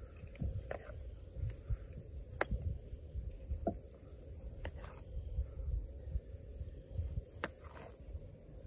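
Faint clicks and knocks from a large fixed-blade knife slicing through hard salami, a handful of separate strokes, under a steady high chirring of insects.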